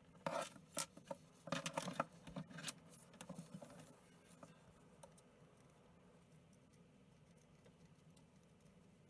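Cockatiel pecking and scrabbling at its toys: a quick flurry of clicks and scratches in the first few seconds, then only faint scattered ticks.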